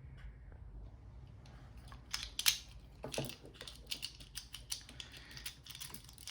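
Irregular small metallic clicks and rattles as a pick is worked and withdrawn from an Abloy Classic disc-detainer padlock. The discs click as they are turned. The clicks are faint at first and grow busier from about a second and a half in.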